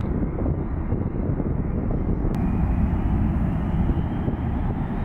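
Distant jet airliner engines: a steady low rumble.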